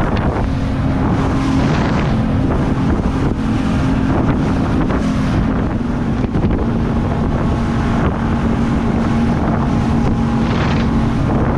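A Fusion 19 fibreglass centre-console boat running at speed through choppy sea. The outboard motor holds a steady drone under heavy wind buffeting on the microphone and the rush and splash of water against the hull.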